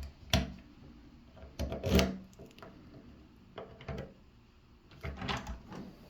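Clicks and clunks of a door lock being worked by hand with its key, in four short bursts, the loudest about two seconds in.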